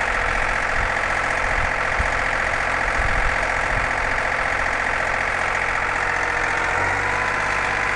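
John Deere compact tractor's diesel engine running steadily as the tractor drives along, heard loud and close from a GoPro on the tractor. Its low note shifts slightly about seven seconds in.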